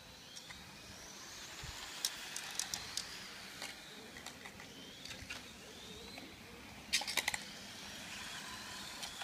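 Radio-controlled on-road car running laps, its motor whine rising and falling as it speeds up and slows for the corners. A few sharp clicks cut through, with a louder cluster about seven seconds in.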